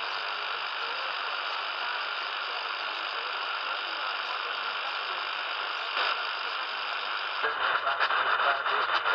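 Portable Tecsun radio on medium wave giving a steady hiss of AM static on a weak channel. About seven and a half seconds in it is tuned up one channel and a weak AM station's talk comes through the noise, louder and choppier.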